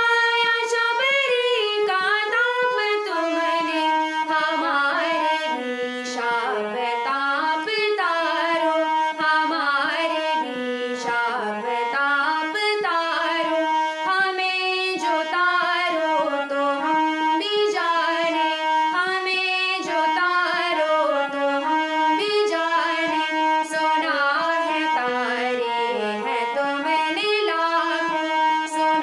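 A woman singing a Hindi Krishna bhajan, accompanying herself on a harmonium whose reedy tones follow her melody.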